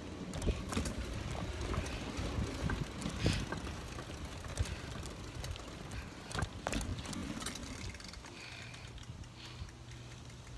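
Bicycle rolling along a concrete sidewalk: continuous tyre rumble with scattered sharp clicks and knocks, the strongest about three seconds in and again around six to seven seconds. A low steady hum joins near the end.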